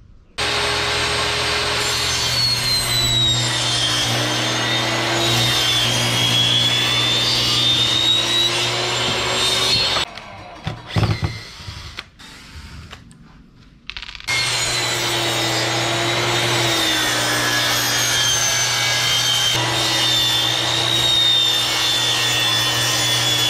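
Homemade table saw (a circular saw mounted under a phenolic-board table) running and ripping phenolic plywood, its pitch dipping and wavering as the board is fed through. It stops about ten seconds in, a few knocks follow, and it starts cutting again about four seconds later.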